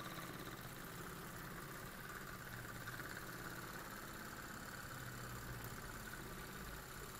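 Small German vertical-boiler model steam engine, thought to be a Carette of about 1911, its oscillating cylinder running steadily under steam. It is very quiet: a faint, even, rapid whirr.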